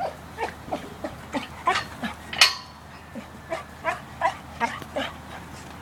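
A dog giving a run of short yips, about three a second, with one louder yelp about halfway through.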